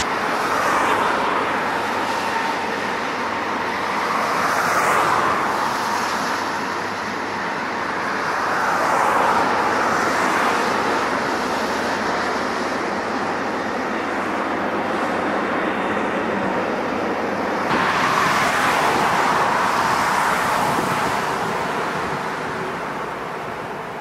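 Jet engines of Boeing 777-300 airliners on landing and rollout: a continuous rushing roar that swells and eases several times. The sound changes abruptly about three-quarters of the way through.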